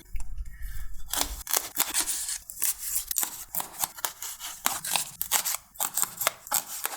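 Plastic takeaway food containers being handled and opened: a quick, irregular run of sharp clicks and crackles.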